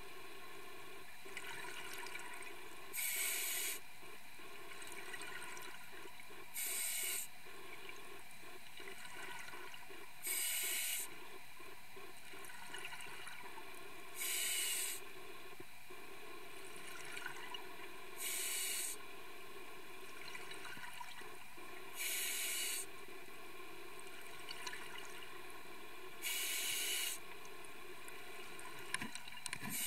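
Scuba diver breathing through a regulator underwater: a short hiss about every four seconds, over a steady low background.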